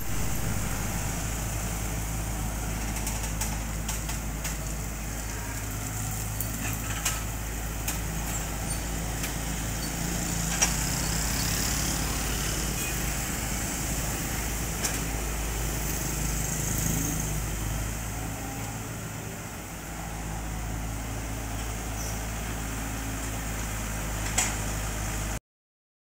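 Komatsu PC78 excavator's diesel engine running steadily while working, with a few sharp knocks.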